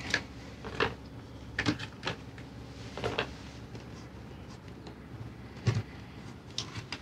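A handful of short, light clicks and knocks spread out irregularly, the loudest near the end, from hands working the controls and panels at a catamaran's helm station.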